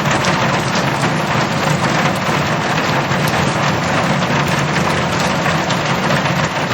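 Heavy rain drumming steadily on a metal roof, a dense continuous patter of drops.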